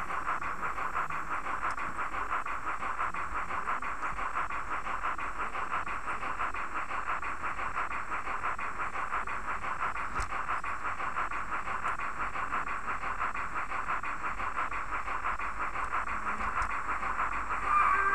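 H0-scale model of the class 52 steam locomotive 52 8177-9 running steadily: a fast, even hissing chuff that holds a constant pace. A pitched tone sets in at the very end.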